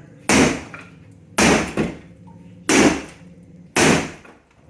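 Hammer blows knocking ceramic wall tiles off a wall, four strikes about a second apart, each with a brief crunch of breaking tile.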